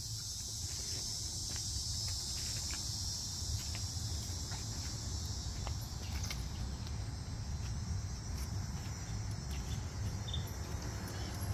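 Steady high-pitched insect chorus, with a low rumble beneath it and light irregular clicks of footsteps on the trail.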